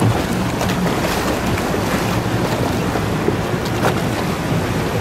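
Small tour boat's motor running under way, a steady low drone, with water rushing and splashing along the hull and wind buffeting the microphone.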